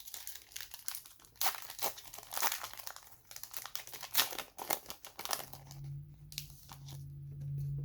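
A trading-card pack wrapper crinkling and tearing as it is pulled open by hand, in a run of irregular crackles. A low steady hum comes in about two-thirds of the way through.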